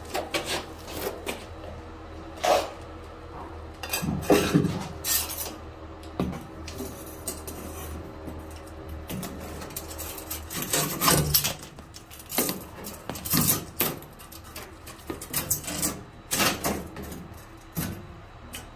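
Irregular clinks, taps and rattles of a long perforated edge-trim strip being handled and fitted along the base of a concrete wall, with sharper knocks now and then.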